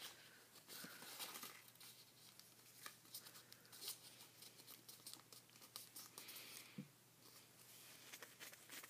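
Sheet of paper being folded and creased by hand: soft, faint rustling and crinkling with scattered small ticks.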